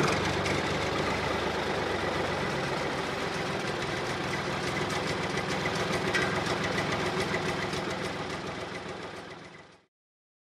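A tractor engine idling with a steady knocking beat, fading out to silence near the end.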